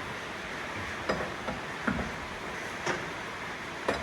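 Four sharp metallic clicks from hand tools, about one a second, during the last of a tyre change.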